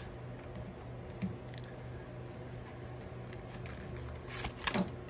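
Reed weaver rubbing and crackling against the basket's reed rim and spokes as it is wrapped around and pulled tight, with a few small ticks and a short, louder rasp near the end.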